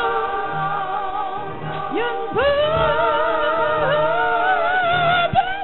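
Gospel singing in church: a woman leads into a microphone, holding long notes with vibrato and sliding up into a new phrase about two seconds in, with choir and electric keyboard accompaniment underneath.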